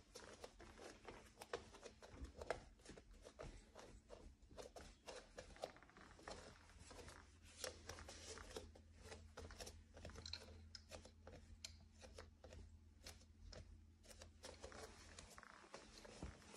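Wooden floor creaking and crackling under slow barefoot steps: a dense, irregular run of small clicks and creaks.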